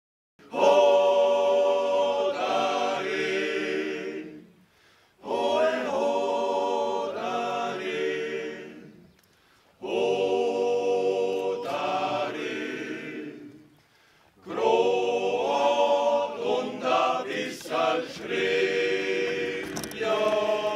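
Men's choir singing a cappella in four phrases of about four seconds each, with short pauses between them.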